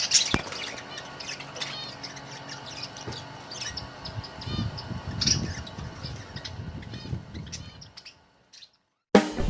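Budgerigars chirping and chattering in quick, short high calls. Near the end the birds drop out and music comes in.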